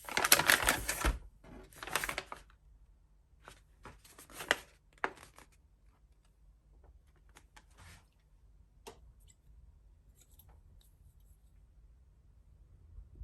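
Grocery packaging being handled: a burst of crinkling and rustling, more rustles about two and four seconds in, then scattered small clicks and taps as items are picked up and set down.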